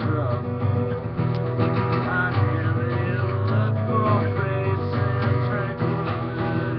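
Steel-string acoustic guitar strummed in a steady rhythm, its chords ringing on.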